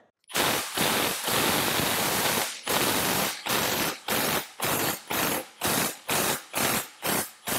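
Impact gun on a long extension running steadily for about two seconds, then in short blips of the trigger about twice a second, breaking loose a rusted nut on the exhaust downpipe-to-manifold joint.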